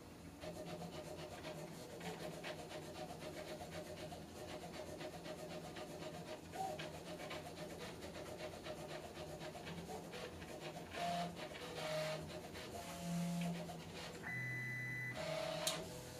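HyperCube 3D printer's stepper motors, driven by TMC2100 drivers in stealthChop mode, moving the print head at 100 mm/s. It is a quiet hum whose pitch changes with each move, and in the last few seconds come several short, louder tones at different pitches.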